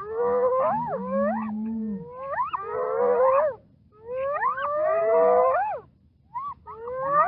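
Several hyenas calling at once, overlapping calls that rise steeply in pitch, in three bouts with short pauses between them.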